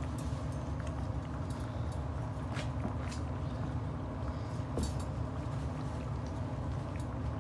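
Miniature pinscher puppies eating dry kibble from a bowl: scattered crunches and sharp clicks of kibble over a steady low rumble.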